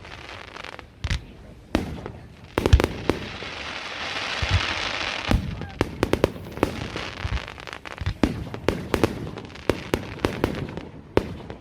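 Fireworks display: aerial shells bursting in a rapid, irregular series of sharp bangs, several in quick clusters. A crackling hiss rises and fades between about three and six seconds in.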